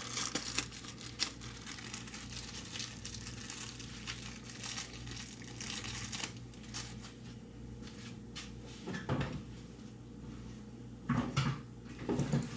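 Hands handling a new replacement part and its packaging: faint scattered clicks and crinkling over a steady low hum.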